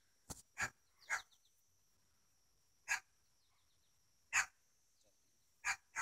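A dog barking in short single barks, about six of them at irregular gaps.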